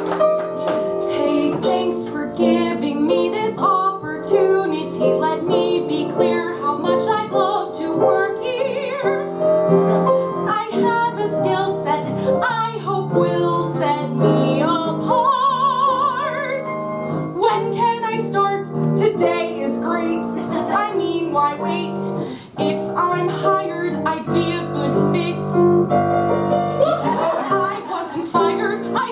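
Piano playing with a woman singing over it in an operatic style, her held notes wavering with vibrato.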